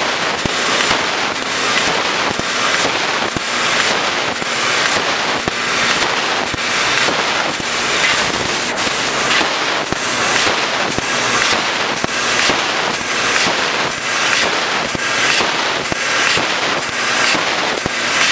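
CNC fibre tube laser cutting a row of holes in a thin stainless steel round pipe. The cutting jet gives a loud hiss that swells and fades about twice a second as the machine cuts one hole after the next.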